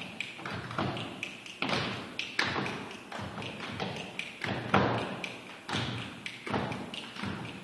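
A group beating out a rhythm with claps and stomps, sharp strikes roughly two a second with uneven spacing, echoing in a large hard-floored studio.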